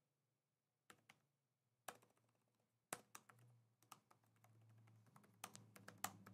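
Faint, scattered keystrokes on a computer keyboard as a password is typed, single key clicks about a second apart, then a quicker run of keys near the end.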